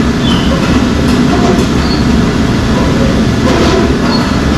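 Steady mechanical rumble and rattle of sweet-factory machinery, loud and even throughout.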